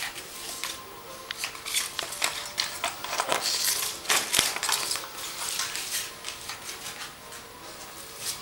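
Maltese puppy worrying a glossy paper leaflet on a tiled floor: irregular crinkling and rustling of paper mixed with quick clicks, busiest in the middle.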